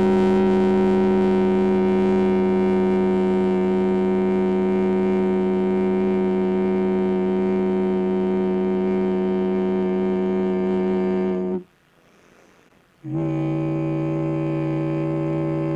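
A long, steady held low note rich in overtones, like a drone, cutting off sharply about eleven and a half seconds in. After a short gap a second held note, slightly lower, comes in and holds.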